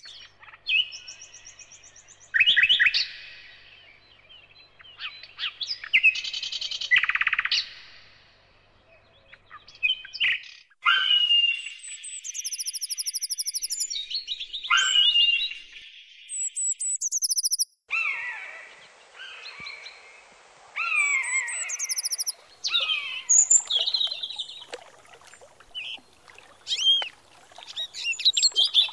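Birds chirping and calling: a run of short, high chirps and whistled calls, many falling in pitch, with brief pauses between them.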